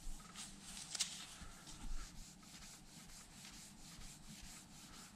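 A cloth wetted with brake cleaner and wrapped around a flat tool is rubbed back and forth over the raised letters of a Royal Enfield Classic 350's polished alloy engine side cover. It makes faint, quick repeated rubbing strokes as it cleans the paint overrun off the letter tops to leave crisp painted lettering.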